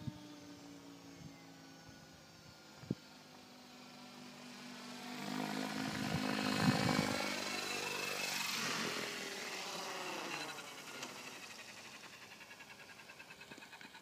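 Synergy E7SE RC helicopter coming down in an autorotation: its rotor blades whoosh louder as it nears the ground around the middle, with the pitch sweeping, then fade to a fainter fluttering pulse as the rotor slows after landing.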